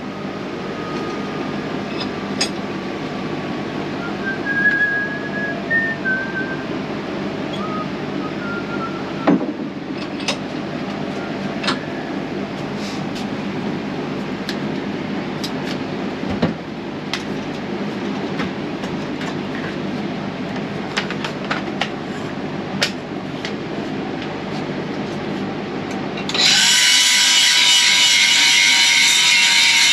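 Steady shop hum with scattered clicks and knocks. About 26 seconds in, a handheld grinder starts up and runs at speed with a loud, steady whine and hiss.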